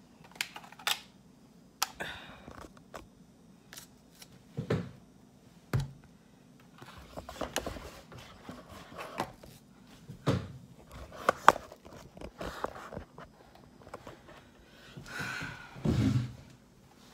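Plastic drink cups and lids on a tabletop being handled and set down: scattered clicks, taps and dull thumps with short rustles, a louder rustle and thump near the end.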